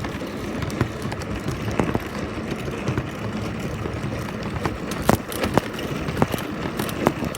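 A vehicle running, a steady low rumble, with a few short sharp clicks about five and seven seconds in.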